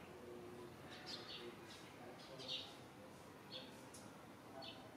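Faint, scattered short chirps of small birds, several in a row with gaps between, the loudest about two and a half seconds in.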